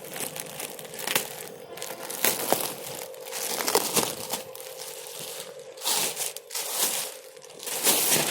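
Crinkling and rustling from handling a new waterproof laptop bag, in irregular bursts with a few sharp clicks.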